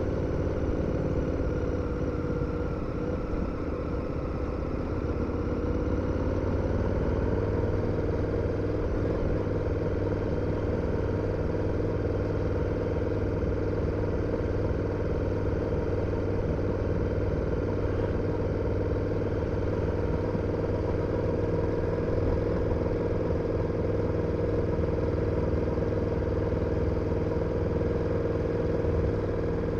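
KTM 1290 Super Adventure's V-twin engine running steadily on the move. Its note rises slightly about five seconds in, then holds at a constant pitch.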